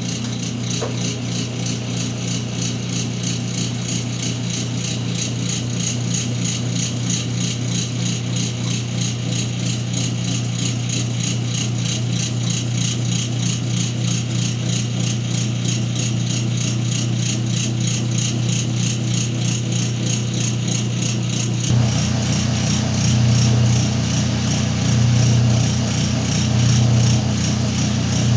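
Whirlpool washing machine running its wash cycle with a heavy load: a steady motor hum with a fast, even rattle. About 21 seconds in the hum grows louder and begins to swell and ease every couple of seconds.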